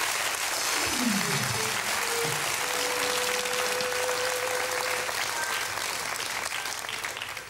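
Studio audience applauding after a punchline, dying away near the end. Over it the house band plays a short musical sting: a low note sliding downward, then a single held note.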